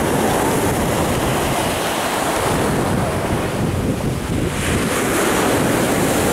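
Sea surf breaking and washing up a pebble beach, with wind rumbling on the microphone. The hiss of the surf swells about four and a half seconds in as a fresh wave comes ashore.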